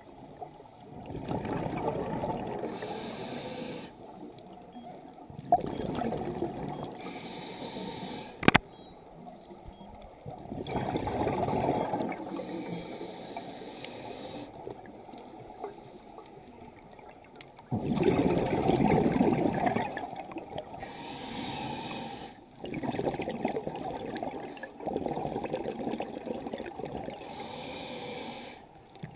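Scuba regulator breathing underwater: bursts of exhaled bubbles every few seconds, with quieter inhalations between. Two sharp clicks come about five and eight seconds in.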